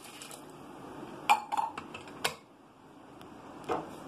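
Water poured from a glass into an aluminium pressure cooker, a faint steady splash for about the first second. Then several sharp metallic clinks of steel utensils against the cooker and plate, with one more knock near the end.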